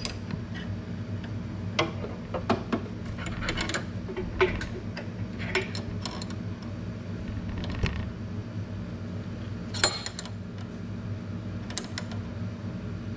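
Wrenches clicking and clinking against the clutch cable lock nut and adjuster of a Harley-Davidson Electra Glide as they are fitted and worked to break the lock nut loose: scattered sharp metal clicks, two louder ones about four and ten seconds in, over a steady low hum.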